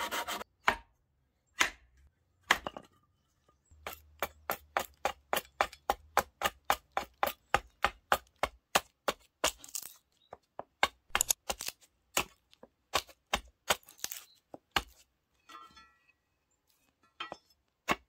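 Sharp chopping strikes into a piece of paulownia wood while roughing out a spoon blank. A few single blows come first, then a fast, even run of about three to four strikes a second, then a few more near the end.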